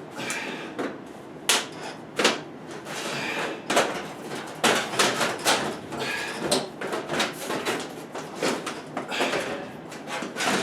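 Sheet-metal heat duct pipe being handled and worked into place: a string of irregular knocks and clanks with scraping and rustling between them.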